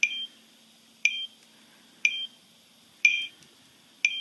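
GPS time-signal beeper box sounding one short, high electronic beep every second, five in a row, marking exact time for timing a star occultation. Each beep is single, not the double beeping that means the GPS time can't be trusted.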